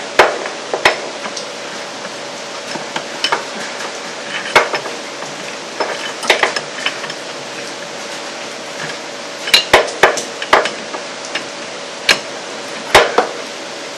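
Metal hand tools clinking and tapping against metal while working a 7/16 nut, sharp irregular clinks with a quick cluster of them about ten seconds in, over a faint steady hum.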